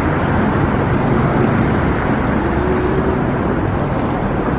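Steady city street noise with passing traffic.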